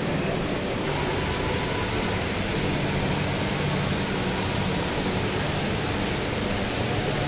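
Steady rushing hiss of a tall indoor waterfall, water sheeting down a multi-storey wall into a pool. The hiss grows stronger about a second in.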